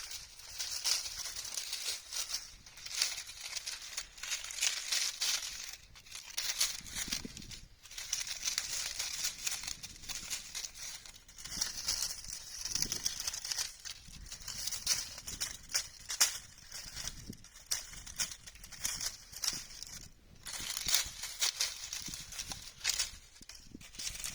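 Dry autumn leaves rustling and crackling, in crisp papery swells that rise and fall every second or two.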